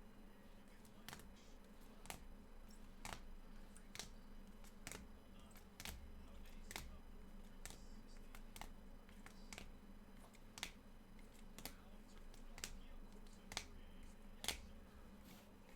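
Faint, sharp clicks at a computer, coming singly about once a second, over a low steady hum.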